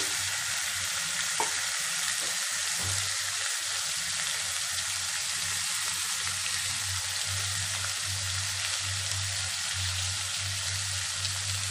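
Raw chicken pieces sizzling in hot oil with fried onions in a pot, a steady hiss. A low steady hum runs underneath from about three seconds in, and there is one light click about a second and a half in.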